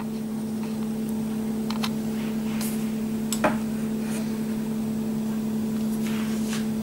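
Steady electric hum of a kitchen appliance's motor, with a couple of faint clicks in the middle.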